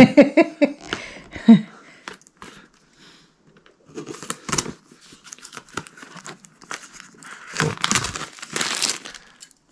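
Tamper seal on a cardboard box being cut and torn with a pointed tool, heard as scratchy tearing and crinkling in two bursts, one about four seconds in and a longer one near the end.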